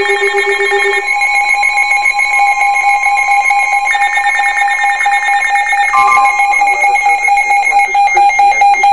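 Weather alert radio sounding its alert alarm: several steady high electronic tones with a fast pulsing beep layered over them, which cut off abruptly near the end as the warning broadcast begins.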